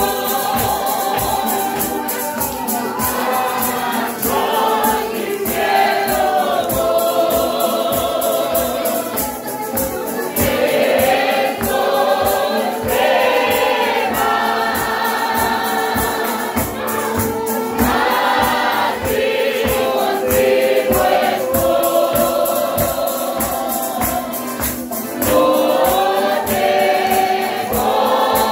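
Congregation singing a Christian hymn together, with a small band accompanying, including a guitar, on a steady beat.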